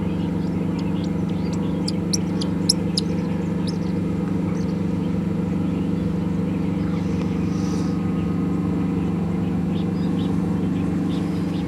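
Steady low mechanical drone of a Nile cruise boat's machinery, with a few short, high bird chirps about two to four seconds in and again near the end.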